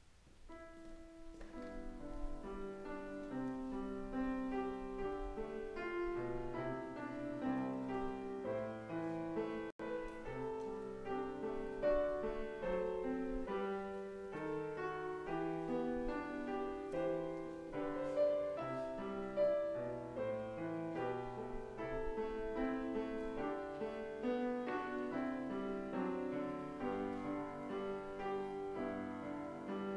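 Grand piano playing an instrumental piece in slow-moving chords. It starts about half a second in, grows louder over the first two seconds, and cuts out for an instant about ten seconds in.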